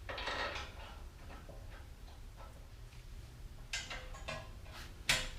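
Scattered light clicks and knocks: a short scuffing rustle at the start, faint ticks, then a few sharp clicks near the end.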